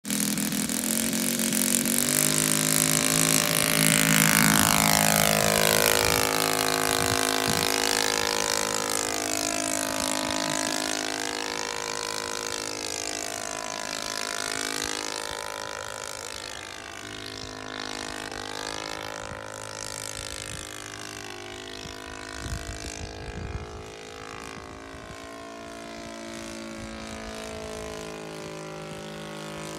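Engine and propeller of a large radio-controlled Tiger Moth model biplane running at takeoff power on its first flight, loudest in the first few seconds, then fading and sweeping in tone as the plane climbs away and circles overhead.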